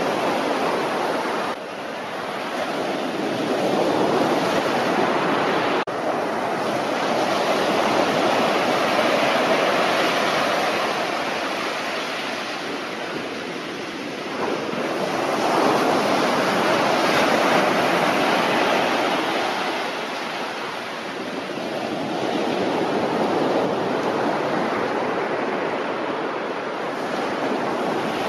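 Sea surf breaking on a beach: a continuous rush of waves that swells and eases three times as the breakers roll in and wash up the sand.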